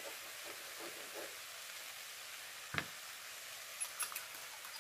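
Beaten egg and fried rice sizzling faintly in a nonstick wok, with a single knock almost three seconds in and a few light clicks shortly after as the rest of the egg is scraped from a bowl with a spoon.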